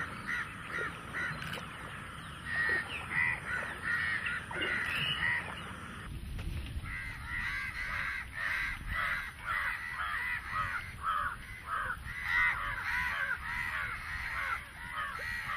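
A flock of crows cawing, many short calls overlapping without pause. A low rumble joins about six seconds in.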